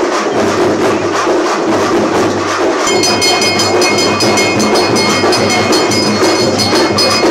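Temple puja percussion: fast, steady rhythmic drumming and clanging. About three seconds in, a bell starts ringing with several high, clear tones over the beat.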